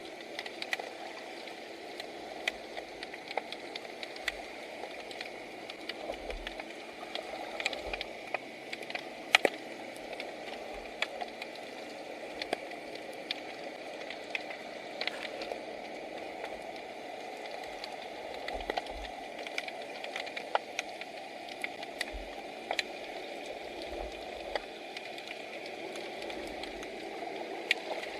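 Underwater ambience picked up by a submerged camera: a steady, muffled wash of water noise with many scattered sharp clicks and crackles.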